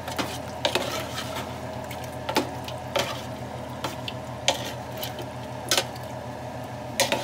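Metal spoon stirring thick gumbo in a metal stockpot, scraping and clinking against the pot's sides at irregular intervals, about once a second, over a steady low hum.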